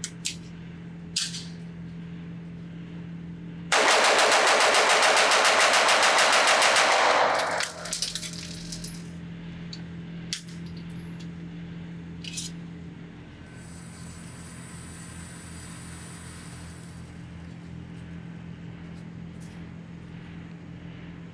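Fowler Industries Vanta 9 Ported MTO, a ported 9mm 2011-style pistol, fired as fast as the trigger can be pulled through a full magazine. The shots come as one rapid, unbroken string lasting about four seconds, starting about four seconds in. A few sharp clicks come before and after the string, over a steady low hum.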